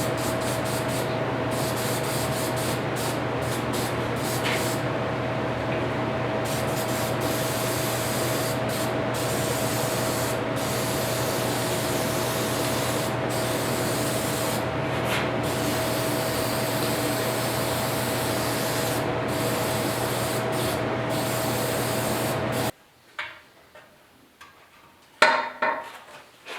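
Steady hiss of a compressed-air tool, such as a sandblaster or spray gun, over a constant machine hum. It cuts off suddenly near the end, leaving only a few small clatters.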